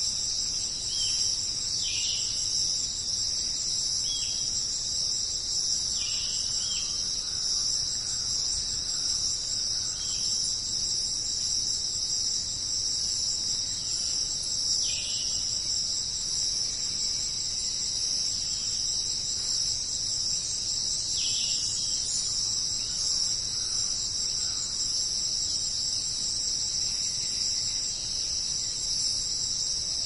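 Dense, unbroken high-pitched chorus of insects, with a few short falling bird chirps every several seconds.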